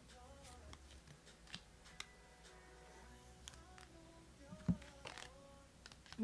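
Oracle cards being handled as one is drawn from the deck: soft scattered clicks and card rustles, with a single short thump about four and a half seconds in.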